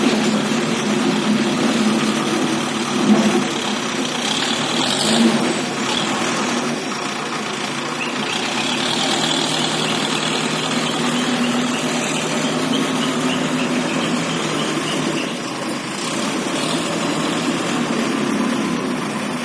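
ACE backhoe loader's diesel engine running steadily while the machine works, with a few short rises in level.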